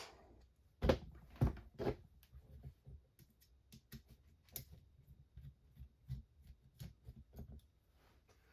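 Small RC kit parts and tools being handled on a workbench: three sharp knocks in the first two seconds, then light, scattered clicks and taps.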